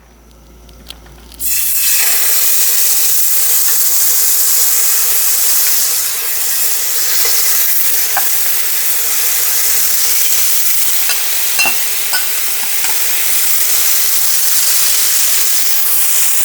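Marinated boneless chicken searing in a very hot oiled pot: a loud, steady sizzle that starts suddenly about a second and a half in as the meat goes in, with a few faint clicks.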